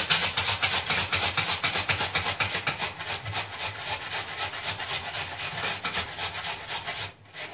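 Raw peeled potato being grated on a handheld box grater, in quick, even rasping strokes of about four to five a second, with a brief pause near the end.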